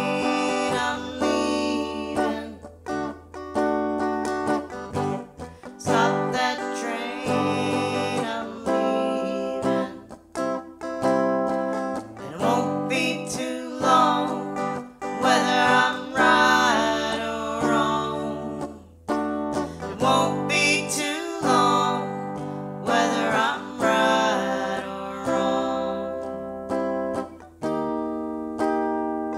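Music: a song led by acoustic guitar, with strummed and plucked notes changing every second or so.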